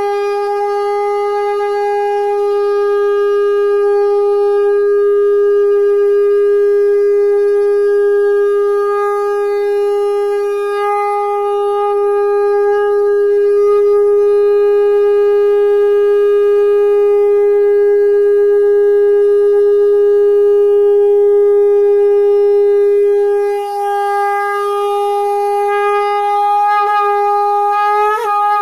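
Conch shell (shankh) blown in one long, steady, loud note held for well over twenty seconds, with a brief dip about twenty-three seconds in and a small crack in the pitch near the end.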